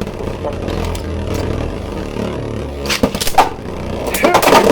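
Two Beyblade Burst tops, one of them 3D-printed, spinning in a plastic stadium with a steady rumbling whirr, with sharp clacks of collisions about three seconds in. A voice exclaims near the end.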